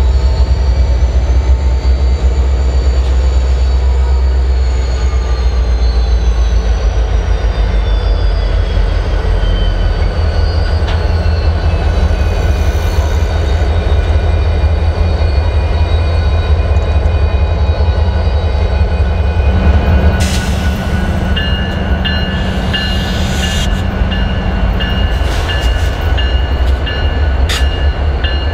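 CN diesel freight locomotives rumbling past at close range, with a heavy low engine drone throughout. A high whine slowly falls in pitch over the first third, and from about two-thirds of the way through, high steady squealing of wheels on rail comes in, with clicks over the rails.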